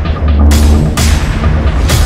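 Dramatic background music with a deep, heavy bass and three sharp percussive hits.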